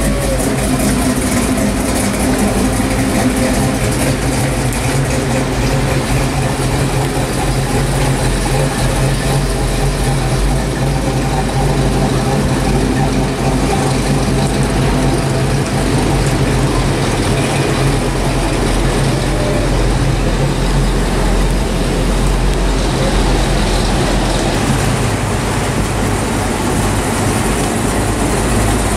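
Classic American cars' engines running at low speed as they drive slowly past one after another, a steady low rumble that shifts a little as each car comes by, over a steady hiss.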